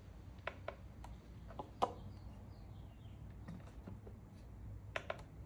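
Faint, scattered small clicks and taps from a digital kitchen scale being handled and its buttons pressed, the loudest about two seconds in, over low room hum. Faint bird chirps are heard in the background.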